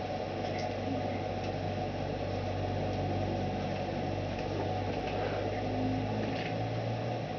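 A steady low machine hum, with a few faint, short high chirps from a Timneh African grey parrot scattered through it.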